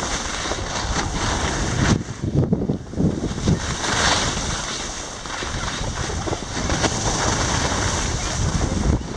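Wind buffeting the microphone of a camera carried by a moving skier, a gusty low rumble over a steady hiss of skis sliding on packed snow.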